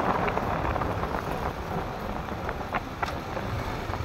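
Street ambience through a phone microphone: a steady low rumble of traffic, with wind buffeting the mic.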